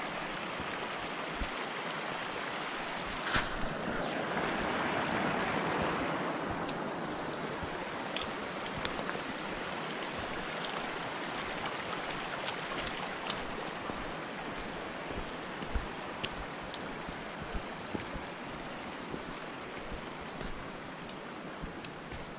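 Steady rushing of running water, a stream, that swells a little about four to six seconds in, with a few faint clicks over it.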